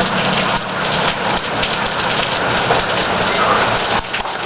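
Heavy rain pouring down, a dense, loud patter of drops hitting surfaces. A low steady hum runs underneath and fades out after about three seconds.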